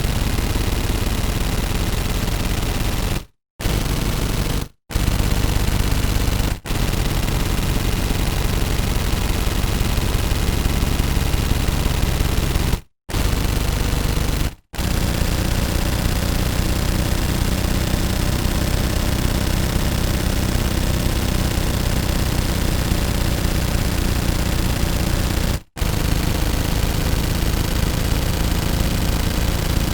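Automatic gun firing long, continuous rapid-fire bursts, broken by six brief silences where each burst stops abruptly.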